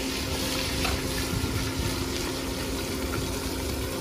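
A wok of long beans and pork in liquid sizzling and bubbling over a fire-burning stove: a steady hiss with a constant low hum underneath and a few faint clicks.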